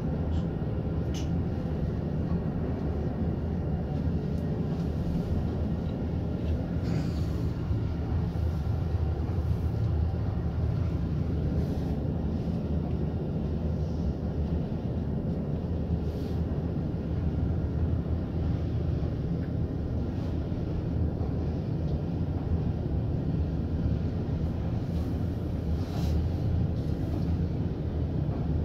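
A 1995 KONE inclined traction elevator car travelling, heard from inside the car as a steady low rumble, with a few light clicks.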